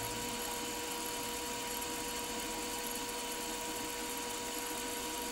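Milling machine running steadily with a wobble pin spinning in the spindle at about 1000 RPM: an even hum with a constant high whine.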